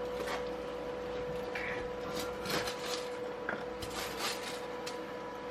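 Scraping and small knocks of metal being handled as the welder's ground clamp is moved to a new spot on the rusty engine, over a steady electrical hum.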